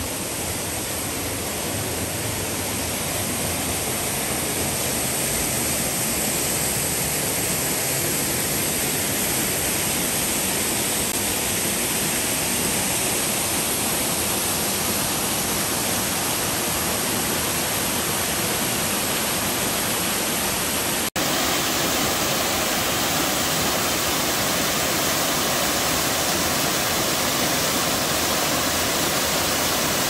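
Waterfall pouring steadily, a loud even rush of water. About two-thirds of the way through it breaks off for an instant and resumes slightly brighter.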